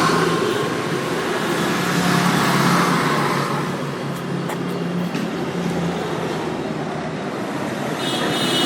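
Road traffic: a steady mix of vehicle engines and tyre noise, with a brief high-pitched tone near the end.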